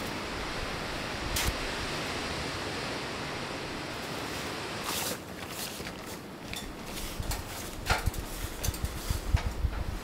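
Steady rush of wind, with one short scrape about a second and a half in. About halfway through the rush drops and is replaced by scattered light knocks and clicks: footsteps on an aluminium stepladder and a metal bucket being carried.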